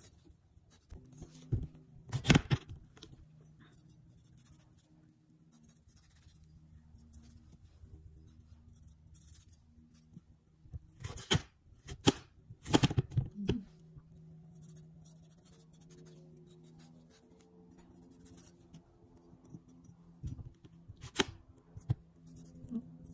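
Kitchen knife cutting soft peeled persimmon on a ceramic plate: scattered sharp clicks and knocks of the blade meeting the plate, in a few short clusters with quiet gaps between.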